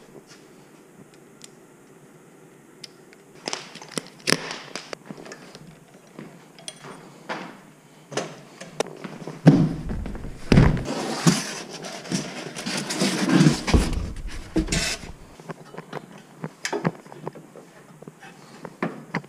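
Scattered knocks, clicks and clatter of photo studio equipment being taken down and moved: a studio flash head unclipped from its stand, a large white box carried, an aluminium rack handled. The handling gets busier and louder for a few seconds in the middle, with rubbing and bumping against the camera.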